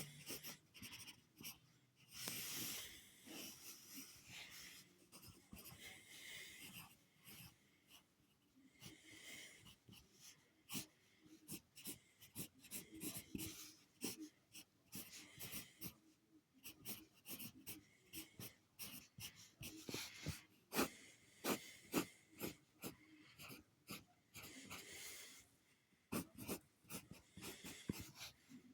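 Heavy, wheezy breathing, with a steady run of short, scratchy drawing strokes on paper between the breaths.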